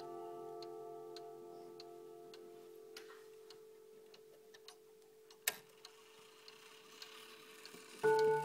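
ODO clock's chime rods ring out and slowly fade while the movement ticks steadily. A single louder click comes about five and a half seconds in. Near the end the hammers strike the rods again, starting the next chime.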